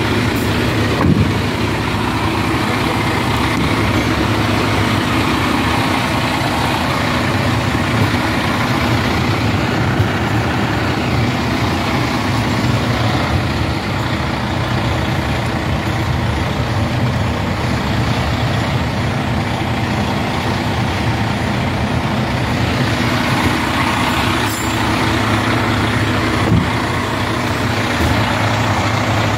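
The Detroit diesel engine of a 2021 Freightliner/Toyne fire-rescue truck idling steadily, with an occasional light click.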